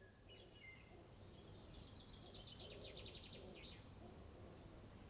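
Faint birdsong over low outdoor background hum: a few short chirps, then a fast rattling trill lasting about two seconds.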